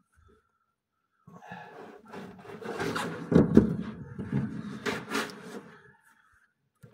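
Rubbing and scraping with a few light knocks, starting about a second in and stopping near the end, as the truck's gearbox is eased along so its splined input shaft lines up with the clutch disc hub.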